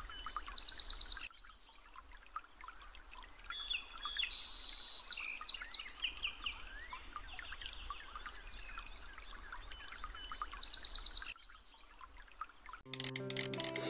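Birdsong: several small birds chirping, whistling and trilling, with a whistled note and a fast trill that come again about ten seconds later. Near the end, a short music jingle with plopping sounds starts.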